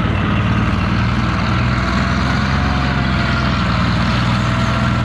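Tiger I tank's Maybach V12 petrol engine running steadily as the tank drives on its tracks: a low, even rumble with a faint steady whine above it.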